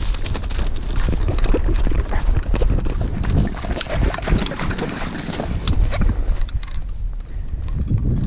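Someone wading through shallow marsh water, a run of irregular sloshing splashes, with wind buffeting the microphone.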